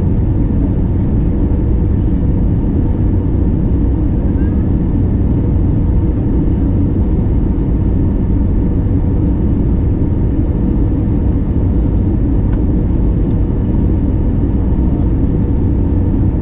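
Steady low rumble of the engines and airflow heard from inside the cabin of an Airbus A321neo airliner, with a faint constant hum.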